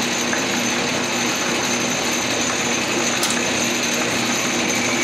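Metal lathe running steadily after start-up, its motor and gear train giving a steady hum and a high whine while the three-jaw chuck spins.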